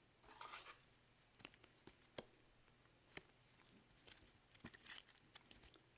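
Faint, sparse clicks and soft rustles of trading cards being handled in gloved hands, over near silence.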